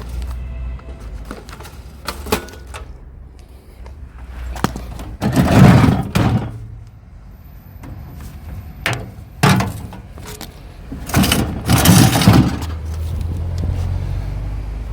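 Knocks, clicks and clattering scrapes of scrap appliances being handled while their power cord is removed, with three louder rattling bursts about a second each, over a steady low rumble.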